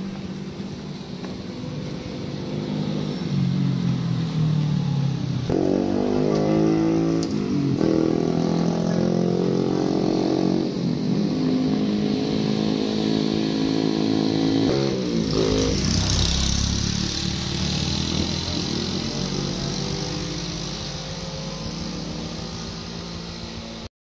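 Vehicle engines passing close on a road, a motorcycle among them: engine notes rise and shift in pitch for several seconds, then a louder rush of a vehicle going by about two-thirds of the way in, fading away after.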